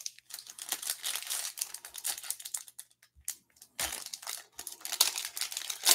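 Foil wrapper of a Panini Select UFC trading-card pack crinkling and tearing as it is handled and ripped open. It comes in two spells of rustling with a short pause about halfway.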